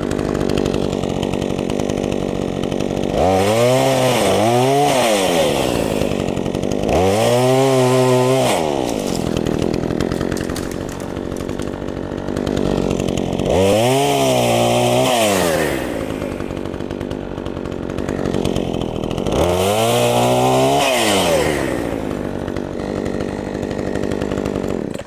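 Craftsman 42cc two-stroke chainsaw with an 18-inch bar, running steadily and revved up to high speed four times, the pitch rising and falling each time; the first is a quick double rev. The sound cuts off suddenly near the end.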